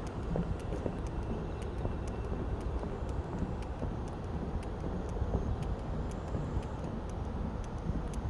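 Steady low outdoor rumble of distant traffic, with faint light footsteps on a wooden boardwalk ticking through it.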